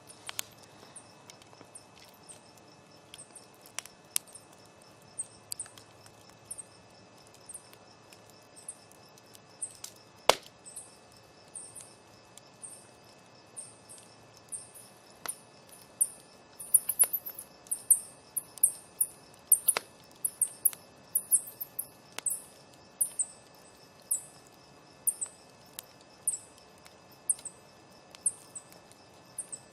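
Campfire crackling, with scattered sharp pops from the burning wood, the loudest about a third of the way in. Behind it runs a steady high insect trill and frequent short high-pitched chirps that come thickest a little past halfway.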